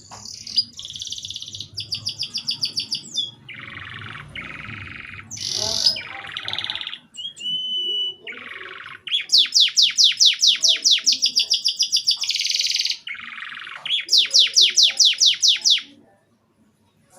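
Domestic canary singing a long song of fast trills and rolls, each phrase a quick run of repeated notes that shifts to a new pitch every second or so, stopping about a second before the end.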